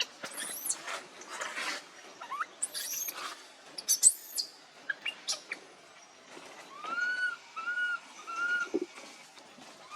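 Baby monkey calling: several sharp, very high-pitched squeals in the first half, then three short rising-and-falling cries in a row near the end.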